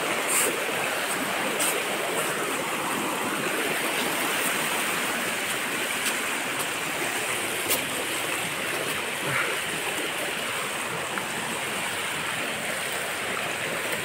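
A stream running over rocks: a steady, even rush of water, with a few faint clicks.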